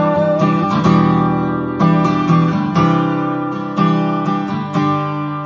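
Acoustic guitar strummed in slow chords, roughly one stroke a second. A held sung note ends about half a second in.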